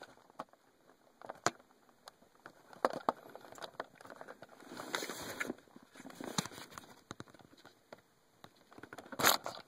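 Scattered light clicks, taps and rustles of hands working at plastic console trim and wiring inside a car's centre console.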